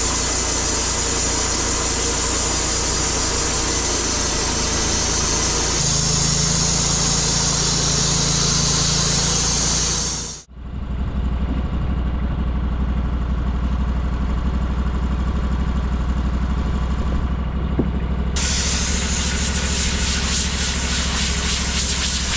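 Portable bandsaw sawmill's engine running steadily while the band blade cuts through an oak log with a loud hiss. About ten seconds in the sound drops out briefly and the cutting hiss is gone, leaving the engine alone. The cutting hiss comes back near the end.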